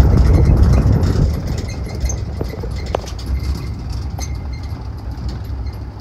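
Safari game-drive vehicle running on a gravel road, a low engine and tyre rumble that eases off after about a second as the vehicle slows. One sharp click comes about three seconds in.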